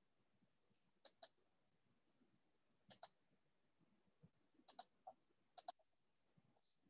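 Computer mouse clicking: four quick paired clicks spaced one to two seconds apart, with one weaker single click between the last two pairs.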